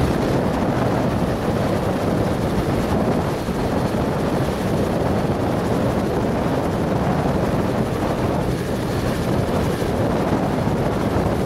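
Small Robinson helicopter running on the ground at idle, its engine and turning rotors making a steady drone.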